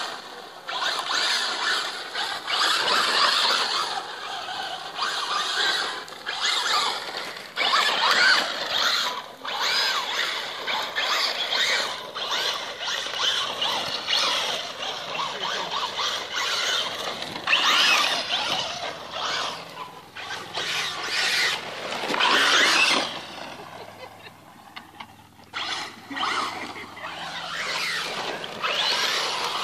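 Traxxas Slash RC short-course truck driven hard in loose sand: its motor whines up and down with the throttle while the spinning tyres spray sand. There is a quieter stretch about three quarters of the way through.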